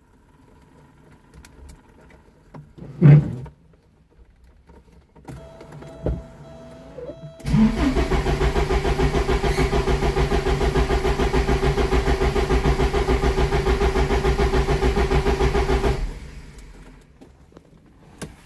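Porsche 944 four-cylinder engine cranking on the starter for about eight seconds with an even, rapid chugging, then the starter stops without the engine ever catching: a no-start even though the fuel pump, fuel filter and reference and speed sensors have been replaced. A short steady tone sounds just before the cranking.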